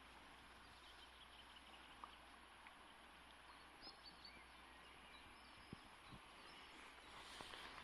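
Faint steady rush of a flowing river, with a few soft, distant bird chirps.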